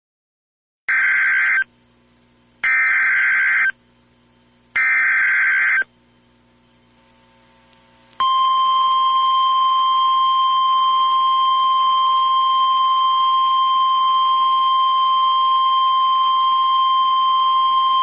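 Emergency Alert System SAME header: three short bursts of two-tone digital data about a second apart, then a loud steady EAS attention tone starting about eight seconds in, announcing a Civil Danger Warning.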